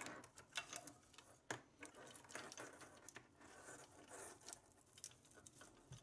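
A USB cable being threaded through a telescope's mounting hardware: faint rustling and scraping of the cable, with scattered light clicks as it rubs and taps against the rings and plate.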